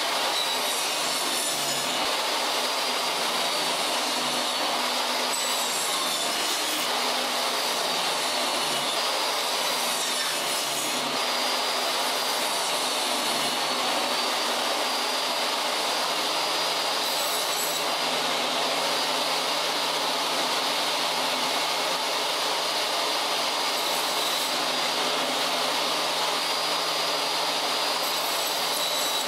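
Benchtop table saw running with a steady, high motor whine, its blade cutting pallet-pine boards.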